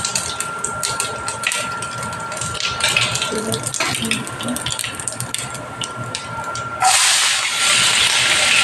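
Cumin seeds crackling and popping in hot oil in a frying pan. About seven seconds in, chopped garlic and green chilli drop into the oil and a loud steady sizzle starts at once.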